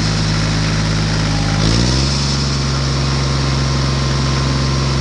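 Engine running steadily, stepping up in pitch about two seconds in and then holding a higher, steady note.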